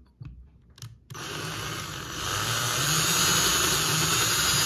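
Power drill boring a hole through painter's tape into a painted wall. It starts suddenly about a second in after a few light handling clicks, runs steadily and grows louder about two seconds in as the bit bites into the wall.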